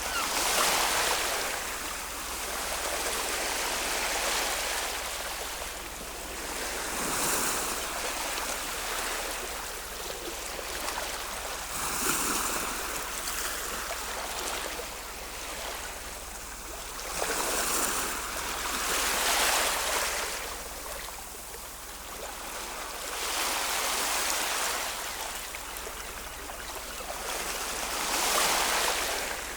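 Ocean waves breaking and washing in, rising and falling in surges every few seconds.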